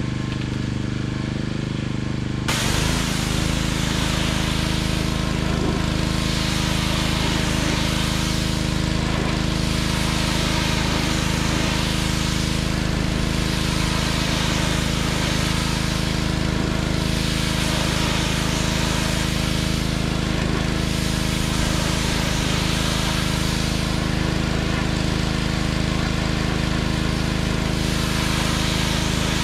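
Pressure washer engine running steadily. About two seconds in, a jet of water starts hissing against weathered wooden siding and keeps on, swelling and fading every few seconds as the spray sweeps across the boards.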